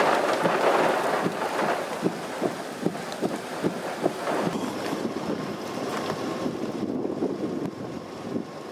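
Gusty wind blowing across the microphone: a steady rushing noise with irregular short knocks and pops.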